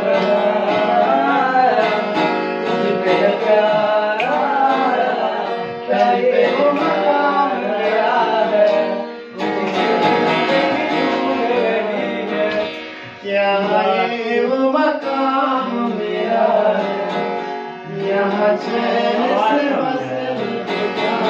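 Acoustic guitar strummed in chords, with a voice singing a melody along with it; the music pauses briefly a few times between phrases.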